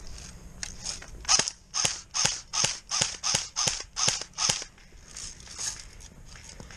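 Battery-powered airsoft rifle firing a quick string of about nine semi-automatic shots, about three a second, each a sharp snap, followed by a couple of fainter shots.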